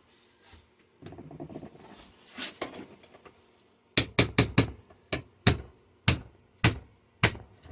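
Hammer striking a cold chisel about ten times against the soft steel frame of a microwave fan motor held in a vise, after some quieter handling noise. The blows come in a quick run, then about one every half second. The metal is so soft that the chisel is not breaking it off.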